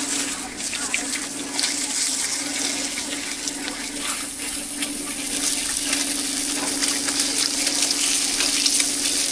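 Cakes frying on a hot street-food griddle: a steady sizzling hiss with small crackles that grows louder about four seconds in, over a steady low hum.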